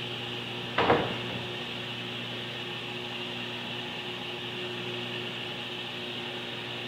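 A cut wooden door panel set down on the table saw top with one sharp knock about a second in, over the steady hum of a large shop fan.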